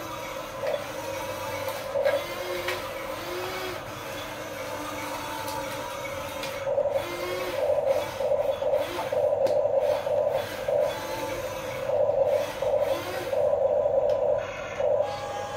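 Huina 1550 remote-control excavator's small geared electric motors whirring as the upper body swings and the boom moves. The whir is steadier at first, then comes in a run of short start-stop bursts through the second half.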